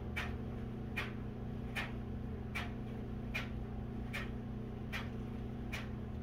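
Soft regular ticking, a little faster than one tick a second, over a steady low hum.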